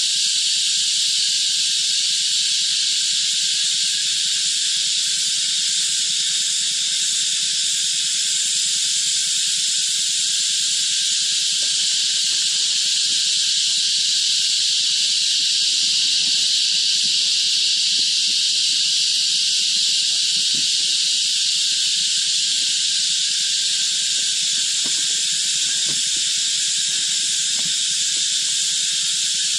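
Cicada chorus: a steady, high-pitched hiss that holds unchanged throughout.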